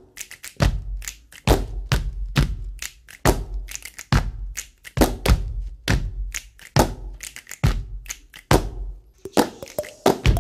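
Body percussion by an ensemble: deep body slaps on a steady beat, a little under one a second, with lighter claps and hand taps between them, growing busier near the end.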